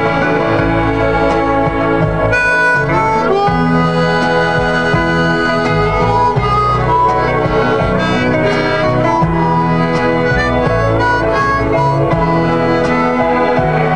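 Harmonica played as a melody of held notes and chords, with a few notes bent in pitch.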